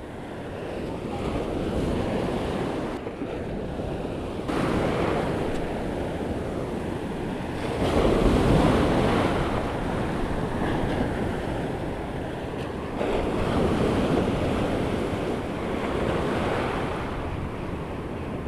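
Surf breaking and washing around the legs of someone standing in the shallows, the rush of the waves swelling and easing, loudest about eight seconds in.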